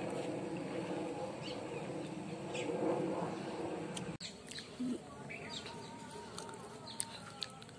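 Outdoor ambience with small birds chirping in short calls and sweeps. A steady rushing background noise fills the first half and drops away abruptly about four seconds in, leaving the chirps clearer.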